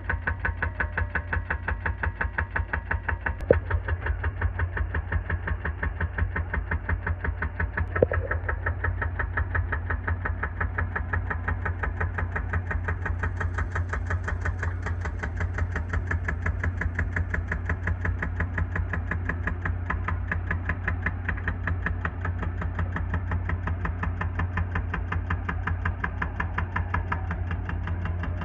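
Excavator's diesel engine running with a steady, rhythmic chug. Two sharp knocks stand out, a few seconds in and again about eight seconds in.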